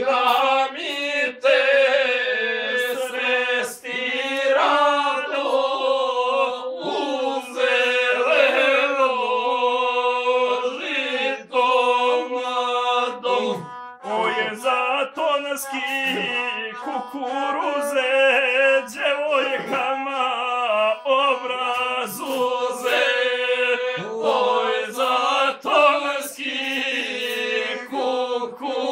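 Gusle, the single-string bowed Balkan fiddle, playing a steady droning line with wavering ornaments, and a man singing along in the chanted epic guslar style.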